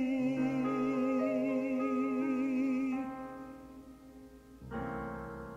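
Male vocal ballad: the singer holds the word "day" on one long note with vibrato over sustained accompaniment chords, and the note fades out about three seconds in. Just before the end a fresh accompaniment chord is struck and dies away.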